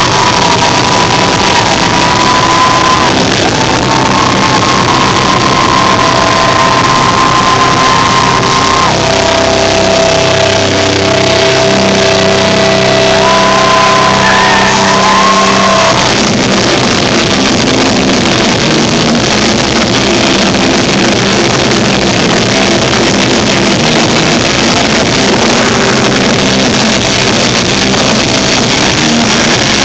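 Loud live rock band, recorded on a phone with poor, distorted sound. Long held lead notes with slides ring over the band for about the first half, then the full band plays on thick and dense.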